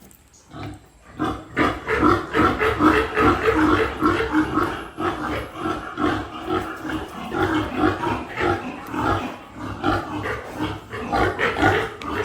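Piglets squealing and grunting while being caught and lifted. The calls start about half a second in, grow loud after about a second, and go on rapidly and densely.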